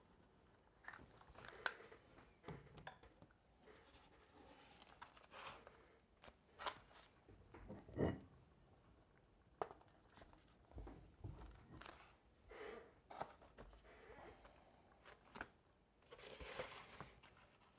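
Quiet handling of a paper-faced foam board wing as it is folded closed and pressed flat by hand: soft rustles and crinkles of the board's paper skin with scattered light clicks. A few dull knocks as cast iron weight plates are set on top to hold the hot-glued trailing edge while it cools.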